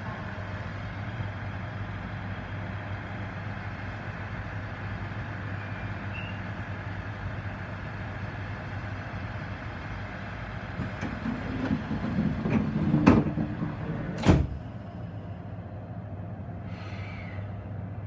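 Stopped train's steady low hum, then its passenger door sliding shut about two-thirds of the way in: a rising rush followed by two loud thumps a little over a second apart.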